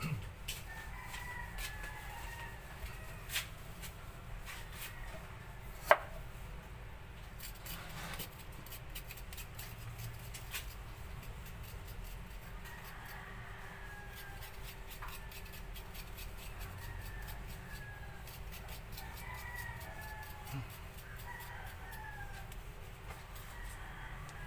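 A rooster crowing faintly several times, with scattered sharp clicks and one loud knock about six seconds in.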